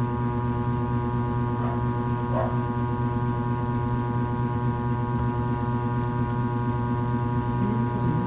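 Steady electrical mains hum with a stack of even overtones. Two faint short sounds come about one and a half and two and a half seconds in.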